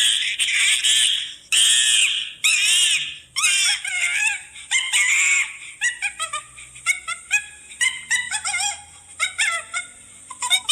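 An animal's high-pitched calls: a close run of wavering calls for the first few seconds, then a string of short calls that each fall in pitch, several a second.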